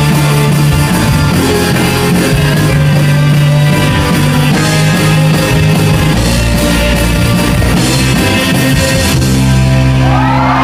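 Live rock band with electric guitars, bass and drum kit playing the closing bars of a song. Right at the end the music breaks off and the audience starts to cheer and whoop.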